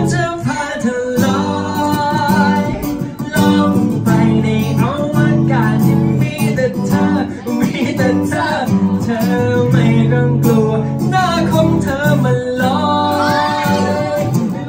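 Live song performed by singers on handheld microphones, accompanied by an acoustic guitar, amplified through the room's speakers.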